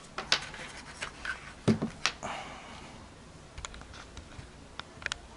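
Handling noise: a scatter of small clicks and taps with a brief rustle, irregular and close to the microphone.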